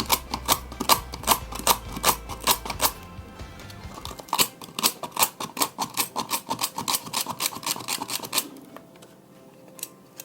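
A rough brush scrubbing corrosion off a remote control's metal battery spring contact in quick back-and-forth strokes, about five a second, in two runs with a short pause about three seconds in.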